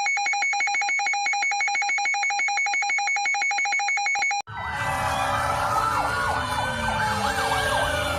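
Two emergency alarm signals one after the other. First comes a rapidly pulsing electronic alarm tone at a fixed pitch, which cuts off abruptly after about four seconds. Then a recording of several sirens starts, wailing up and down over one another against a noisy background.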